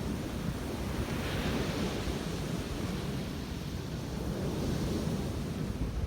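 Ocean surf washing onto the beach, swelling about a second in and again near the end, with wind buffeting the microphone.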